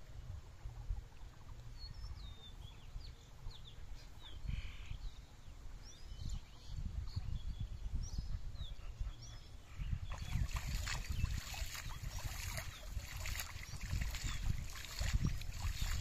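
Small birds chirping over a low rumble; from about ten seconds in, water splashing and sloshing as a rope and net are hauled in through shallow paddy water.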